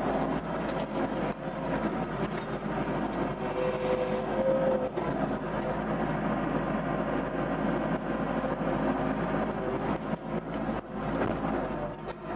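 Doosan DX55 excavator running steadily under hydraulic load while digging soil, with scattered knocks from the bucket and arm. A short whining tone comes about four seconds in.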